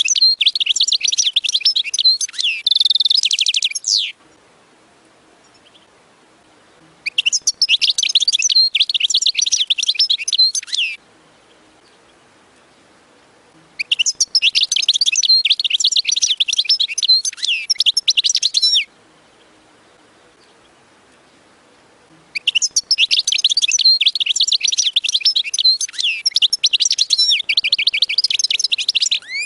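European goldfinch singing: four bouts of rapid, twittering song, each a few seconds long, with pauses of about three seconds between them.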